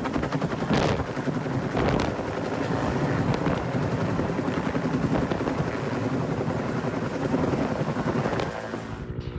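Utility helicopter hovering low overhead on a long line, its rotor blades beating in a fast, steady chop.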